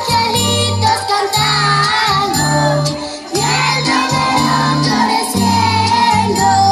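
A Christmas song with singing over a bass line that moves in held notes, with jingle bells.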